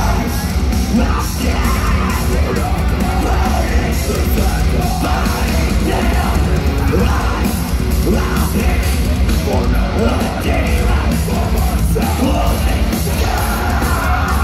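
A metal band playing live and loud, with distorted guitars, bass and pounding drums, while the singer yells and sings into the microphone.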